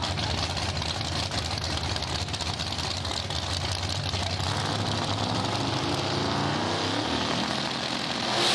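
Drag-race car engines running at the starting line, staged for a launch. From about halfway through, engine pitch climbs steadily as the revs are built up.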